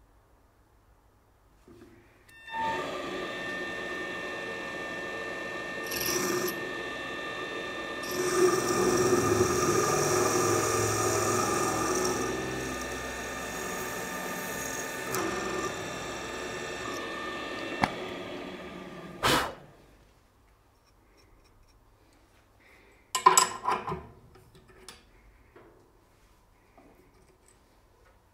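A drill press spindle running with a carbide cutter grinding into a hardened steel strip: a steady motor whine under a rough cutting noise that swells in the middle and stops about nineteen seconds in. A few sharp metal clatters follow a few seconds later.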